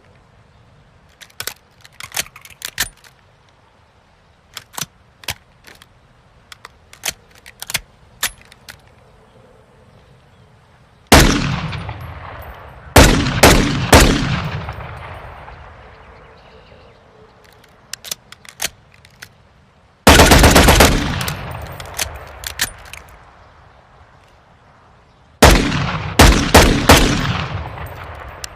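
GS Magna pistol sound effect: a run of light, sharp metallic clicks over the first nine seconds or so, then loud gunshots, each with a long echoing decay. There is one shot about eleven seconds in, three quick shots a couple of seconds later, a heavy shot around twenty seconds, and a rapid volley of five or six shots near the end.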